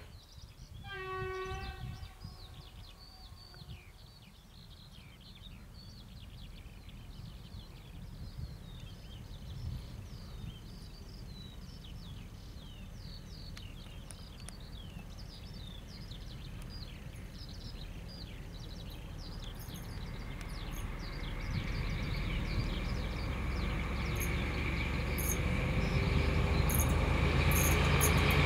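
A train horn gives one short blast about a second in. Birds chirp for a while after it, then the rumble of the approaching SU45 diesel locomotive grows steadily louder through the last third.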